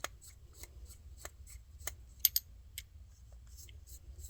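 Small screws being backed out with a screwdriver: a steady run of light ticks, about three or four a second, with two sharper metallic clicks a little past two seconds in.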